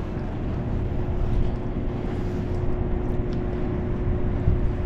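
Wind rumbling on the microphone, with a faint steady hum held at one pitch underneath.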